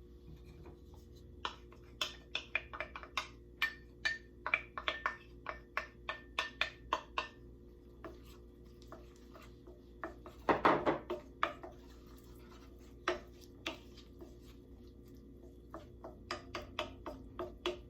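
A spoon stirring chopped shallots and garlic in a pan, clicking and tapping against the pan in quick runs, with a louder scrape about ten and a half seconds in.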